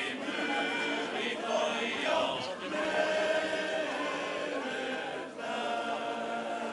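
Estonian men's choir singing sustained chords, with two brief breaks between phrases.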